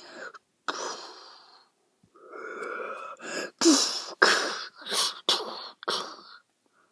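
Sound effects made with a person's mouth: breathy hissing noises, then a run of about six short, sharp bursts.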